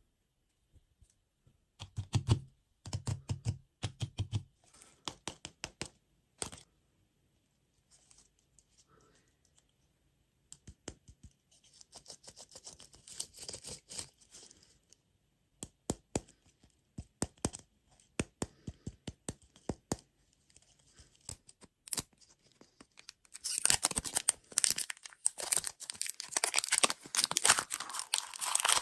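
Packaging crinkling and tearing, with scattered sharp clicks and taps. The crinkling becomes dense and loud for the last five seconds or so.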